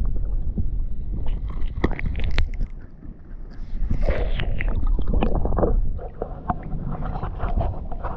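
Muffled sloshing and gurgling of water around a camera held under the surface of shallow water, with scattered sharp clicks of shell on shell as crown conchs are pulled off an oyster bed by hand. The heavy rumble drops away about six seconds in as the camera comes up out of the water.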